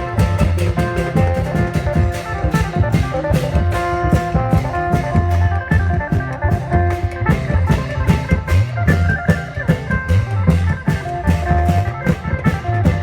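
Thai klong yao long-drum band playing procession music: long drums and cymbals keep a fast, even beat under an amplified melody and a heavy bass line.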